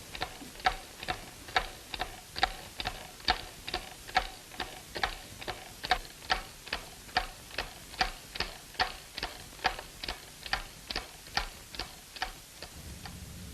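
Clock ticking steadily, an even tick-tock with alternating louder and softer beats, about two and a half ticks a second, stopping near the end.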